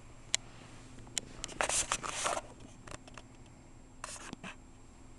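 Rustling and scraping on cloth and carpet as a cat scrambles about a person's legs, with a few sharp clicks. The loudest rustle falls a little under two seconds in and lasts under a second.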